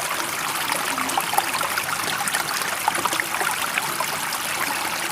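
Steady rush of running water, with many small splashes and trickles and no rise and fall of waves.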